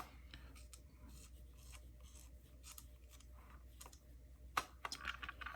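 Faint small metal clicks and taps as the parts of a disassembled padlock are handled, with a sharper click about four and a half seconds in and a few quick clicks after it.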